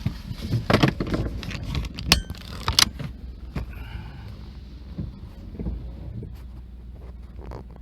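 A vehicle passing over with sharp metallic clanks and knocks, several loud ones in the first three seconds, over a low steady rumble that carries on more quietly afterwards.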